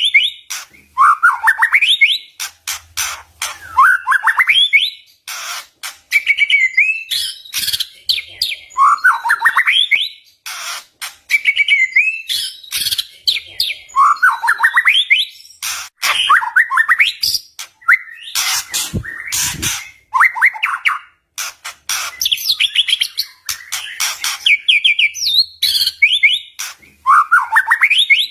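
White-rumped shama (murai batu) singing loudly: rising whistled sweeps and fast trills broken by sharp, harsh clicking notes, with the phrases coming again every few seconds.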